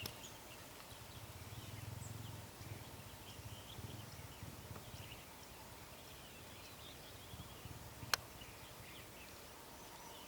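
Quiet outdoor ambience with faint scattered bird chirps. A low distant rumble runs for the first few seconds, and a single sharp click comes about eight seconds in.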